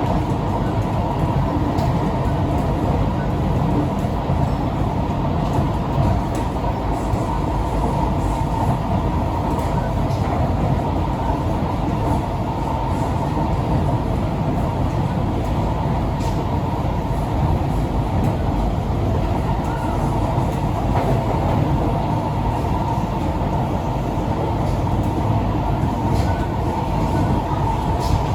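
Cabin noise of a Singapore MRT C151B train running between stations: a steady rumble of wheels and motors with a steady whine, and a few light clicks from the track.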